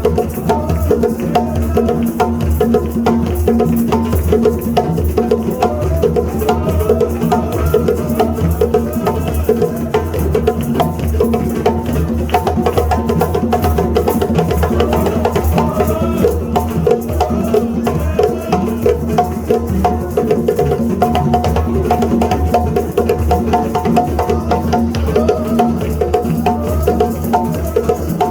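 African drums played in a dense, continuous rhythm.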